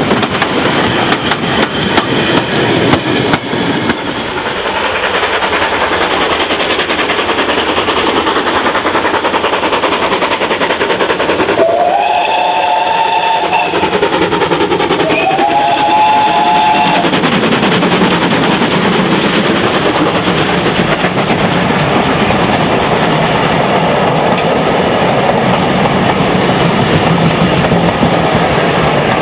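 Steam train running past, its wheels clicking over the rail joints. About twelve seconds in, a GWR 0-6-0 pannier tank's whistle gives two short blasts, each rising slightly in pitch, and the train's running noise carries on after them.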